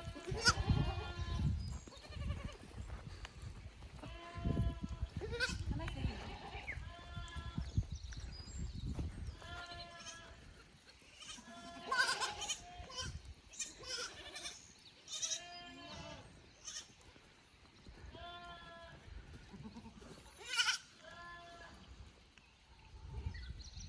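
Young goat kids bleating over and over, high-pitched calls each under a second long, coming every second or two, with low rumbling noise underneath at times.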